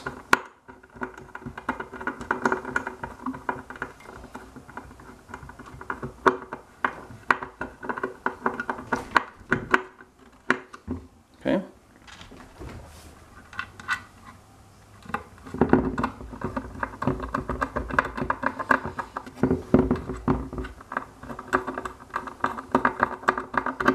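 Screws being turned by hand to fasten a rubber sensor pad into an aluminium hoverboard frame: runs of rapid metallic ticking and scraping lasting several seconds each, with pauses and handling knocks between them.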